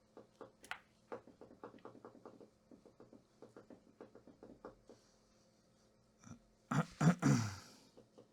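A quick run of small, light clicks, several a second, for about five seconds, over a faint steady electrical hum. Near the end comes a louder, short breathy sound.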